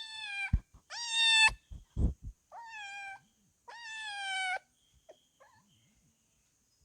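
A kitten meowing four times in quick succession, each call high and falling slightly in pitch, with a few short knocks between the first calls.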